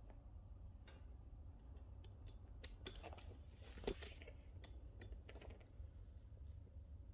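Oak logs burning in a wood-burning fireplace, crackling faintly with scattered sharp snaps and one louder pop about four seconds in.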